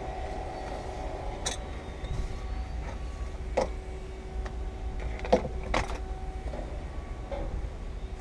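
A steady low hum and rumble, with a few scattered sharp clicks and knocks as tools are handled on the windshield frame.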